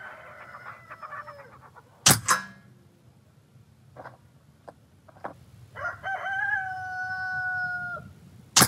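AEA HP SS semi-automatic .25 caliber PCP air pistol fired twice, about two seconds in and again at the very end; each shot is a sharp crack followed a fraction of a second later by a second crack. A rooster crows twice, once at the start and again about six seconds in, with a few faint clicks between.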